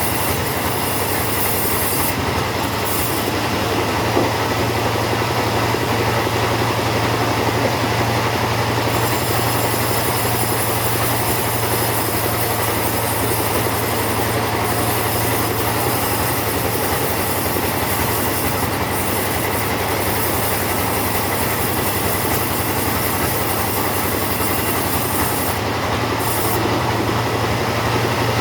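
Chainsaw running steadily at full throttle while cutting through teak. Its engine note and cutting noise hold at one level throughout, without easing off.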